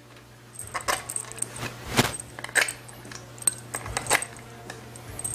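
Handful of 10 mm valve body bolts clinking together in the hand and against the metal valve body as they are set in and started by hand on a GM 4L60-E transmission: a string of sharp metallic clicks, the loudest about two seconds in. A faint steady hum runs underneath.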